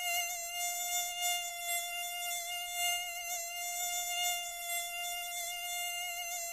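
Mosquito whine: a steady, thin buzz held on one high pitch that wavers slightly.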